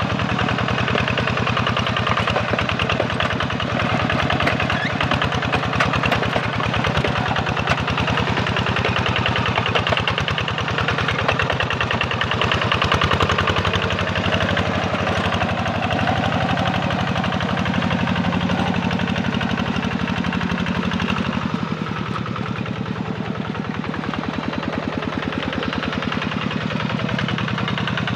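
Kubota RD85 single-cylinder diesel engine of a walk-behind hand tractor running steadily under load with a fast, even chugging while it ploughs the wet paddy, easing slightly about three quarters of the way through.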